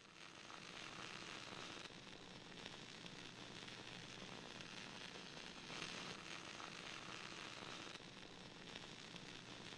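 Faint radio static: a steady hiss with light crackle, swelling a little about six seconds in.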